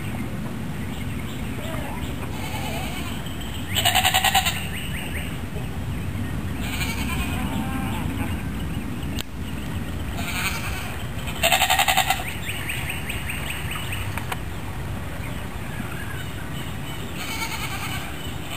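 Goats bleating: two loud, quavering bleats about four and twelve seconds in, with fainter calls between them, over a steady low rumble.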